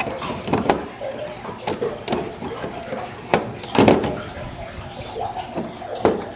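Irregular knocks and clatters of seed-starting trays and gear being handled and set in place, the loudest pair about halfway through.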